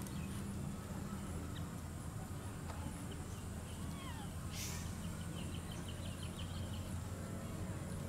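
Outdoor ambience: a steady low hum with birds chirping, including a brief high burst about halfway through followed by a quick run of short chirps.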